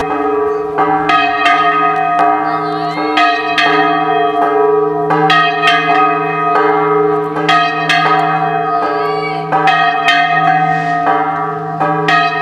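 Church bells ringing, struck about twice a second in an irregular pattern, their several pitches overlapping and ringing on between strikes.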